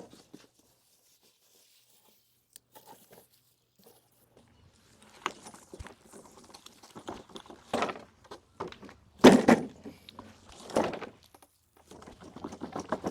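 Irregular thuds and rustles of things being handled, sparse at first and busier after about five seconds, the loudest about nine seconds in.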